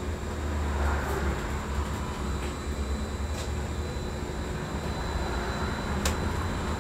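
Cabin noise on the upper deck of a Wright Electroliner battery-electric double-decker bus in motion: a steady low rumble with a faint steady high whine over it, and a few light clicks.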